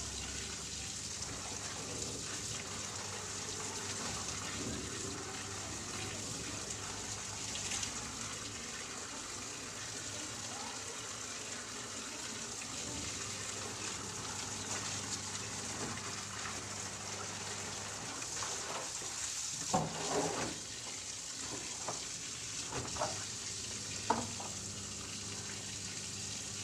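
Water running steadily from a wall tap. A few knocks and clatters come about twenty seconds in.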